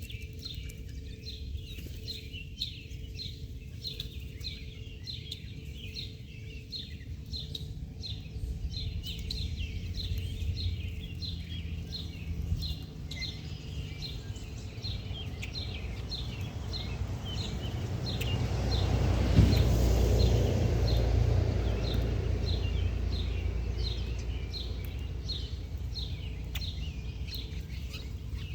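Small bird chirping over and over, short falling chirps roughly once a second, over a steady low outdoor rumble. The rumble swells and fades about two-thirds of the way through.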